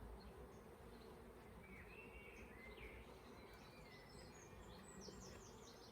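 Faint steady buzzing of honeybees in flight around an opened hive, with birds chirping in the background about two seconds in and again near the end.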